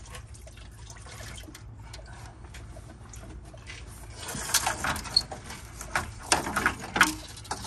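A car radiator with its plastic fan shrouds scraping and knocking against the engine bay as it is worked loose and lifted out. Quiet at first, then several rough scrapes and rattles from about four seconds in.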